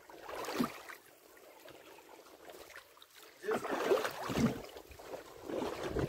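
Splashing and knocking as a hooked grouper is hauled by handline out of the water up a small boat's side, loudest for about a second from three and a half seconds in.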